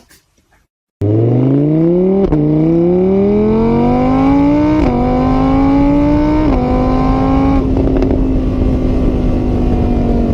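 A car engine accelerating hard through the gears. The pitch climbs, dips at each of four shifts, then holds steady. It starts and cuts off abruptly.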